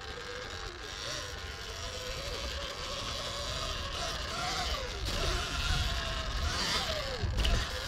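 Sur-Ron Ultra Bee electric dirt bike riding a dirt trail: the electric motor's whine rises and falls with the throttle, over a low rumble from the tyres on the trail.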